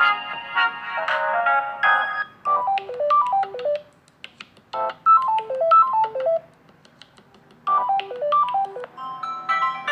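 Samsung Galaxy A03 Core ringtones playing as they are previewed. A dense chiming tune cuts off about two seconds in. A different ringtone follows: a quick run of falling notes, played three times with short pauses between. Another tune starts near the end.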